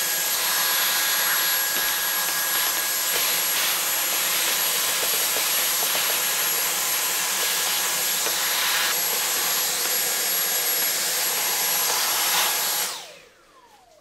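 Dyson vacuum cleaner running steadily with a crevice tool, sucking dried cat litter and hair out of a carpet cleaner's brush housing. It is switched off near the end, and its motor whine falls in pitch as it spins down.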